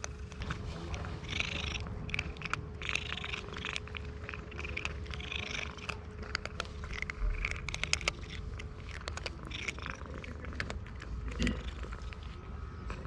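Cat purring loudly while eating dry kibble: a steady low purr under frequent crisp crunches of chewing.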